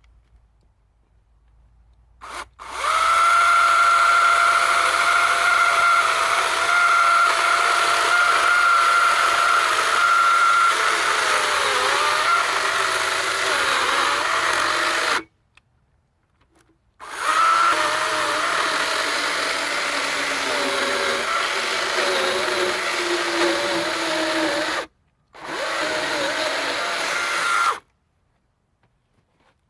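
48-volt battery electric chainsaw with a 14-inch bar cutting a log of about 12 inches, in three runs with short stops between them. The motor's steady whine wavers and drops in pitch as the chain loads up in the wood.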